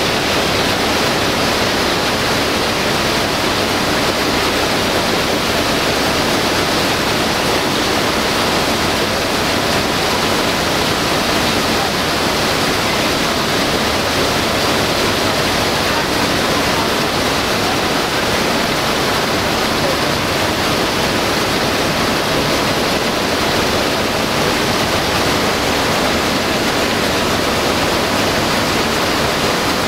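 Shelled maize pouring in a steady rushing hiss from a side-tipping trailer into a receiving hopper, with a low engine hum underneath.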